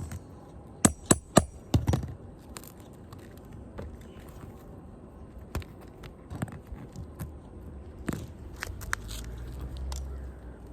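Sharp knocks and scrapes of roofing tools working loose old asphalt shingles and their nails: three loud quick strikes about a second in, two more just before two seconds, then scattered light clicks and scraping. A low rumble builds near the end.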